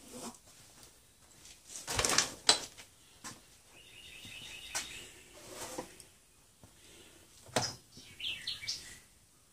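Small birds chirping, with a few sharp knocks and clatters of work around a bench. The loudest knock comes about two seconds in, and quick chirps rise and fall near the end.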